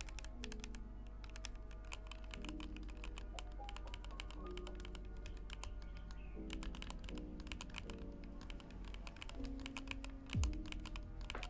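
Rapid, continuous typing on a split mechanical keyboard fitted with Anne Pro 2 and Razer BlackWidow keycaps: a dense stream of key clacks, over background music.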